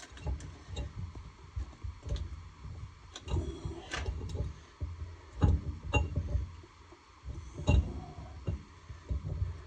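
Irregular metal knocks, clunks and scrapes of hands working a two-stroke snowmobile engine cylinder down over the piston and rings onto the crankcase. The two loudest knocks come a little past the halfway point and near the end.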